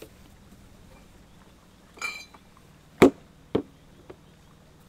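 A short ringing clink about two seconds in, then two sharp knocks about half a second apart, the first the loudest, and a faint tick after.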